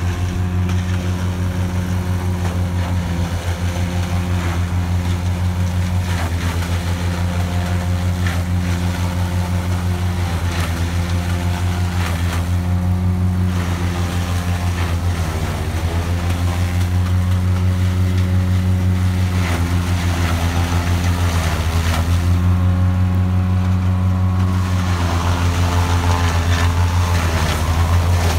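Tractor engine driving a forage chopper that is chopping hand-fed maize stalks for silage. The steady engine hum dips briefly in pitch every two to three seconds as each armful of stalks loads the chopper, then recovers.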